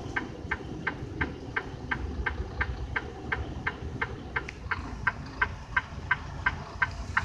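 A semi-truck's flasher relay clicking steadily, about three clicks a second, over the low rumble of the truck's diesel engine while it reverses.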